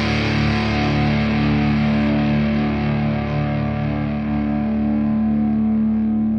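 Background music: sustained distorted electric guitar chords, fading gradually.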